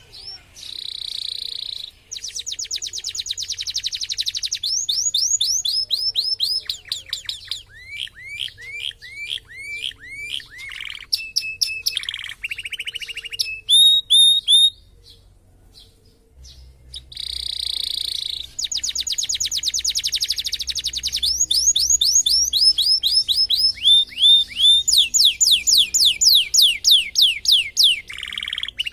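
Domestic canary singing a long, rapid song of fast rolls, trills and repeated downslurred whistled notes, in two bouts with a short break about halfway. It is an 'isian' canary, whose song is filled with phrases learned from other birds.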